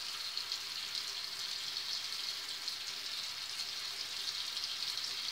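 Steady background hiss with faint crackling and a low hum: room tone, with no distinct event.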